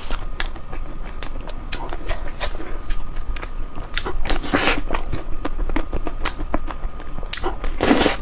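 Close-miked mouth sounds of someone eating ice cream: irregular wet clicks and smacks of chewing, with two louder bursts, one about halfway through and one near the end.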